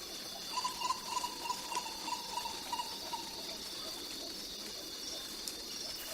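Tropical rainforest ambience: a steady, high-pitched insect chorus, with an animal call repeating quick notes about three a second during the first half.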